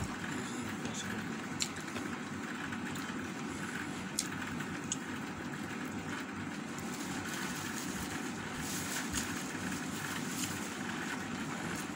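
Eating by hand: chewing and a few faint clicks of mouth and fingers working roast chicken and rice, over a steady background hiss.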